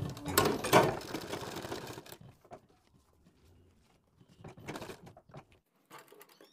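Domestic sewing machine stitching piping onto a neck in a short run of clatter over the first two seconds, then stopping; a few soft sounds of the fabric being handled and shifted follow.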